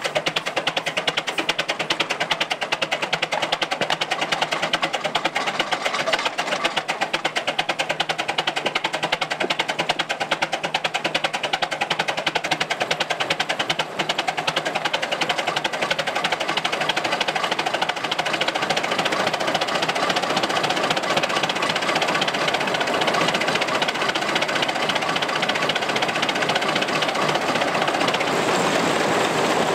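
Antique tractor engine running steadily under load, driving a threshing machine by a long flat belt: a fast, even mechanical clatter.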